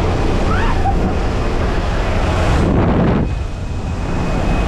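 Rush of air through the open door of a jump plane in flight, buffeting the microphone, over the steady low drone of the aircraft's engine and propeller. The rush eases slightly a little after three seconds.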